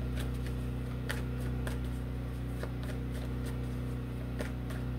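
Steady low hum with a few faint, scattered clicks.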